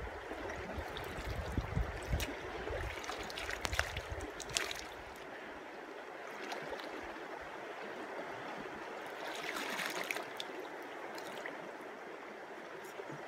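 River water running steadily past the bank, with splashing and sloshing as a gold pan is dipped and worked in the shallows, in a cluster between about two and five seconds in and again near ten seconds. A low rumble underneath stops about five seconds in.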